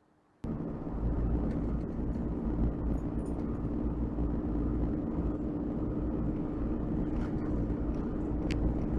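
Vehicle driving: steady engine and road noise with a low hum, cutting in suddenly about half a second in.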